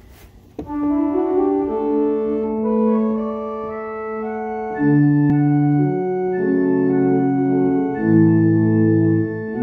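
Church organ playing a hymn prelude in held chords: the chords start about half a second in, and lower bass notes join about five seconds in.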